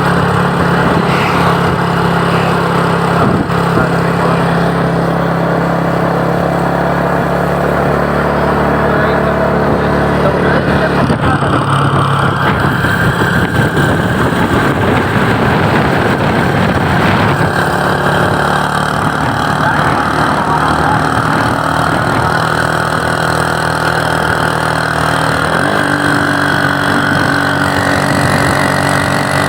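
Road vehicle engines and traffic running steadily, with no telolet horn tune.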